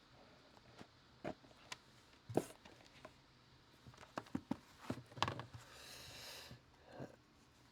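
Quiet handling of trading cards and foil packets: scattered light taps and clicks, with a short soft rustle of cards sliding near the end.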